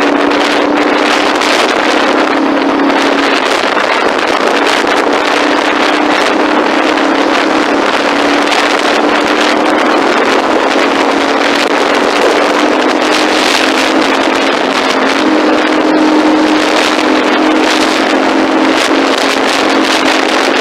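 An engine running with a steady drone under way, its pitch shifting slightly now and then, under loud wind rush on the microphone.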